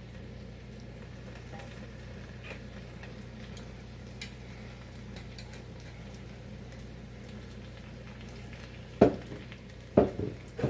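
Vegetables frying in oil in a pot, a faint steady sizzle with small ticks. Near the end, three sharp knocks of a utensil against the pot.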